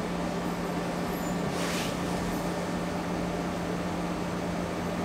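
Steady low room hum over a faint hiss, with one short breathy rush of noise about a second and a half in.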